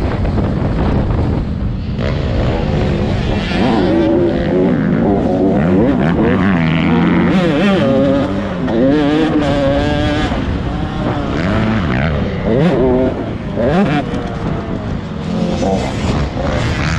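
Several dirt bike engines revving up and down, overlapping as the bikes ride past on a motocross track, with wind on the microphone throughout.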